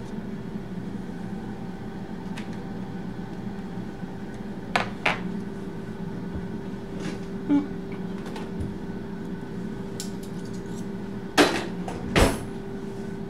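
Kitchen handling sounds: a few scattered knocks and clatters of utensils and dishes on a counter, the two loudest near the end, over a steady low hum.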